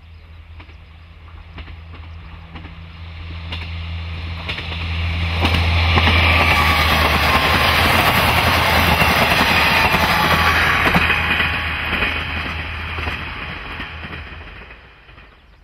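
A two-car JR KiHa 40-series diesel railcar set approaching and passing at speed. The engine drone grows, with wheels clicking over rail joints and a loud rush of wheels on rail for several seconds as it goes by, then fades away.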